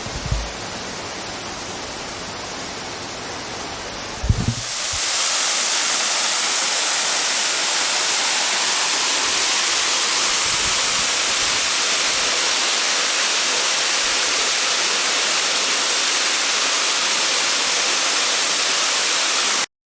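Waterfall rushing steadily. About four seconds in it switches abruptly to a louder, brighter rush of falling water, with a low thump at the change.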